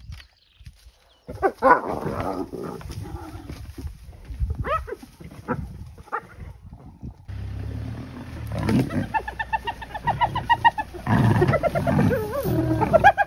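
Spotted hyenas and a lion cub calling at close range, the cub surrounded by the hyenas and calling for its mother: a few short rising calls, then from about eight seconds in a fast run of short high yelping notes, several a second, followed by louder drawn-out calls near the end.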